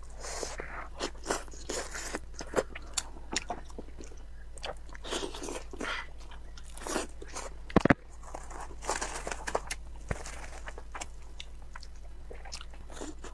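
Close-up wet chewing and lip-smacking of braised pork meat and skin, with many short clicks and smacks as the meat is bitten and pulled apart. A single sharp knock sounds about eight seconds in.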